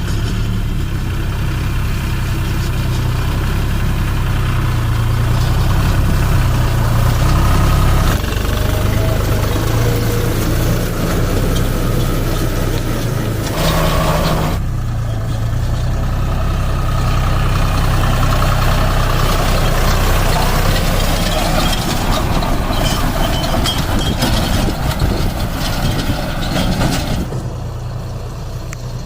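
Deutz Fahr 4050E tractor's three-cylinder diesel engine running steadily, with a brief louder noisy burst about halfway through and the engine sound falling off near the end.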